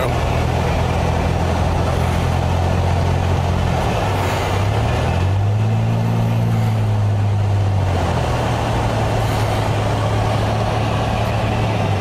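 Car engine running with tyre and road noise, heard from inside the cabin while driving slowly on a snow-covered street. The engine note rises briefly about five seconds in, then settles back to a steady hum.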